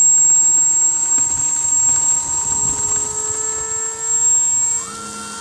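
RC model Cessna 120's motor and propeller running steadily with a high whine. Near the end the pitch steps up and the sound gets quieter, as the throttle is changed.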